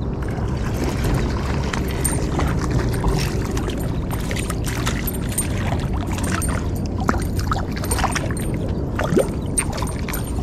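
A hooked smallmouth bass splashing in shallow water as it is drawn by hand to a rocky bank: scattered light splashes and clicks over a steady low rumble.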